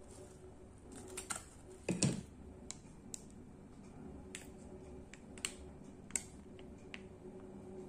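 Light clicks and taps of food preparation: metal tongs setting fried chicken nuggets down onto lettuce on a ceramic plate, with one louder knock about two seconds in, then a plastic squeeze bottle being worked. A faint steady hum runs underneath.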